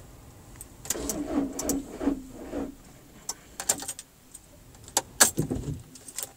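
A bunch of car keys jangling and clicking as they are handled at the ignition, with a few sharp clicks around five seconds in.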